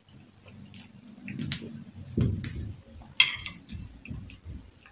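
A metal spoon clinking and scraping on a plate while scooping food, with a sharp clink about three seconds in.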